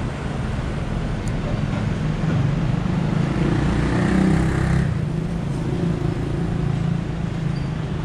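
Street traffic: a steady rumble of vehicles, with one passing vehicle swelling louder between about three and five seconds in.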